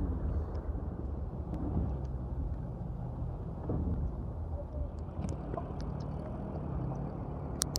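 Car wading through deep floodwater, heard from inside the cabin: a steady low rumble of the engine with water washing against the body, and a few sharp clicks near the end.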